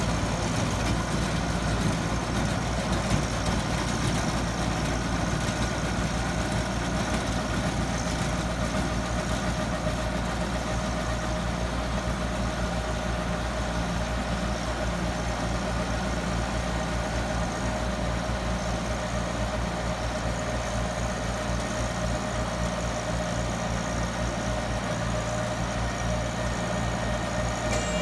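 Compact tractor's diesel engine running steadily under load, driving a mini round baler off its 540 PTO as the baler picks up and rolls hay. A steady hum with a constant machine whine over it.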